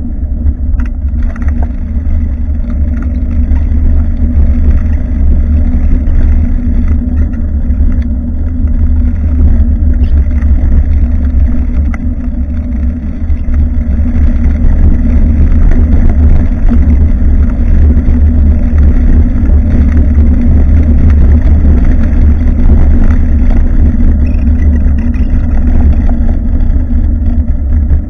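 Steady rumble of wind buffeting a bicycle-mounted action camera's microphone along with tyre and road noise from riding, with a few light knocks and rattles from bumps.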